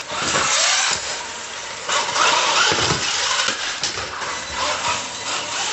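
UDIRC 1202 1:12 scale electric RC truggy driving on a smooth shop floor: its motor and drivetrain whine in repeated spurts as the throttle is opened and let off, the pitch sweeping up and down.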